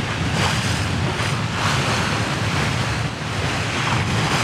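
Choppy, confused sea rushing and splashing against the hull of a sailing catamaran under way, with wind gusting over the microphone in slow surges.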